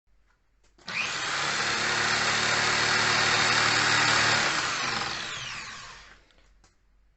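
Old electric drill driving a homemade disc sander, switched on about a second in, running steadily at full speed, then switched off and winding down with a falling whine near the end.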